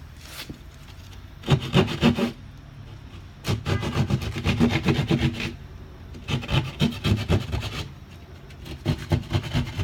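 Hand keyhole saw cutting through drywall in four bouts of quick back-and-forth strokes, with short pauses between, as the ragged hole is squared up.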